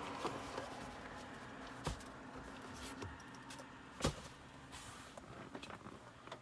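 A few sharp clicks and knocks from handling inside a car's cabin, the clearest about two and four seconds in, over a faint steady hum.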